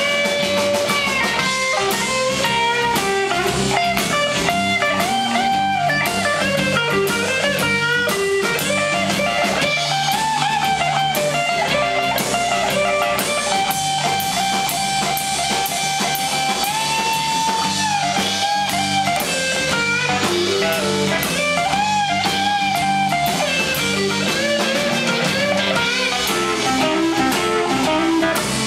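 Live blues-rock band playing, led by an electric guitar solo on a hollow-body archtop guitar, with bent notes and a long held note about halfway through, over drums and bass.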